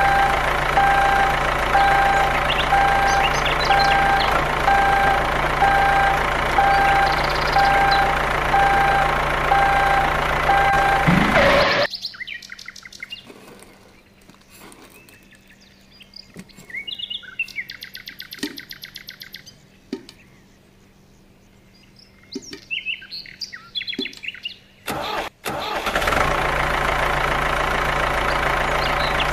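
Toy tractor engine running steadily and loudly with a regular beeping over it. It cuts off suddenly about twelve seconds in, leaving quiet with scattered bird chirps and a few light clicks. The steady engine sound starts again near the end.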